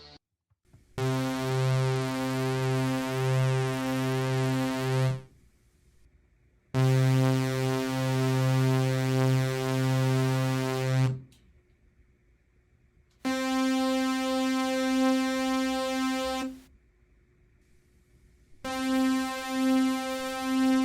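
Juno-106-style synthesizer playing four held notes of about four seconds each, with short gaps between them, through its bucket-brigade chorus, each note wavering slowly. The last two notes are higher than the first two.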